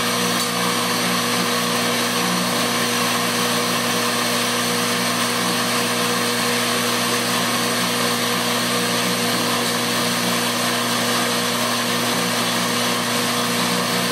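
Commercial stainless steel burr coffee grinder running steadily, grinding a pound of coffee beans at a drip setting: a constant motor hum under the even noise of the beans being ground.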